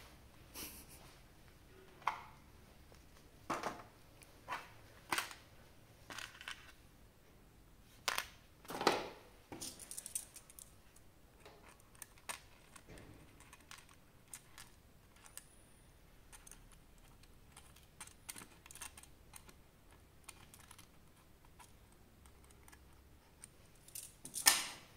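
Small plastic pieces and packaging being handled during an action-figure unboxing: scattered, irregular clicks, taps and short rustles, with the loudest clack near the end.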